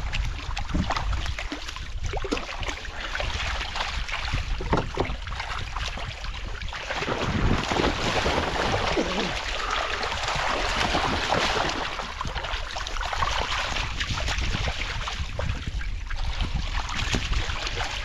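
Shallow river water splashing and sloshing around a seine net packed with live vendace as it is worked by hand, with wind rumbling on the microphone.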